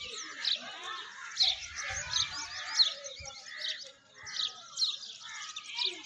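Small birds chirping and twittering in a busy chorus, with short, sharp, high chirps that sweep down in pitch, repeating about once or twice a second.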